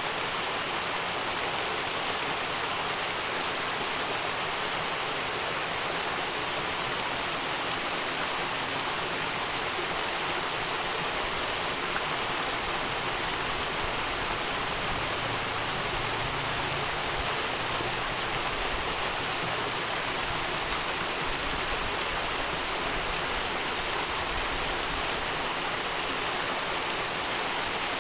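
Small mountain stream rushing steadily, an even, unbroken hiss of flowing water.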